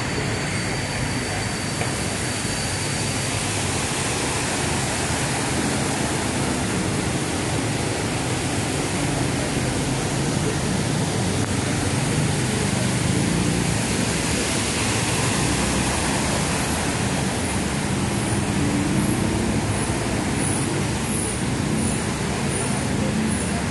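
Steady rushing noise of a flooded city street, with motor traffic running through it.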